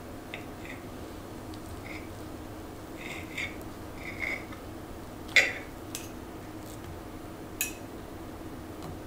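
Knife and fork cutting soft pancakes on a ceramic plate: short squeaky scrapes of metal on the glaze and a few sharp clinks, the loudest about five seconds in, over a steady low room hum.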